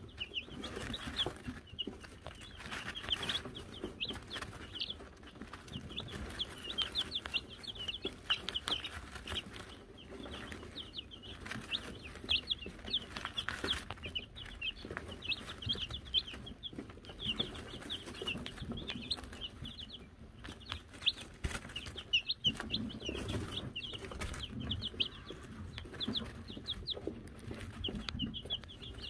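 A brood of Wyandotte chicks peeping continually, many short high peeps overlapping, with light rustling and tapping as they scratch and peck in the wood shavings and at the feeder.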